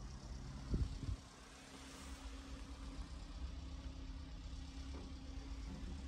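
1994 Honda Acty kei truck's small three-cylinder engine idling steadily, heard from inside the cab, with two dull thumps about a second in.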